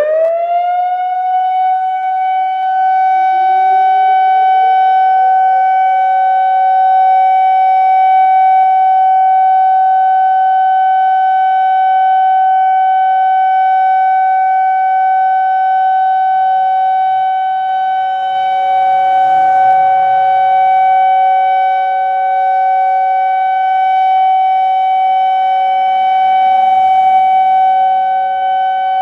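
Whelen WS-2750 electronic outdoor warning siren sounding a steady alert tone for its weekly tornado siren test: the tone climbs to pitch in about the first second, then holds one loud, steady note. A second, lower tone climbs and settles just beneath it over the first few seconds.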